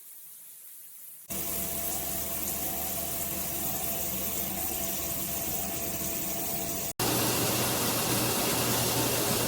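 Water spraying from a Hibbent all-metal shower head, a steady hiss with a low hum. It starts suddenly about a second in, then cuts abruptly near the end to a louder, denser spray.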